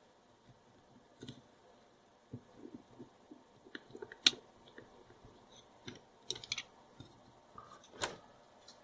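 Small plastic and metal parts of a rocker light switch being handled and fitted together: scattered light clicks and knocks, with a sharp click about four seconds in and another near the end.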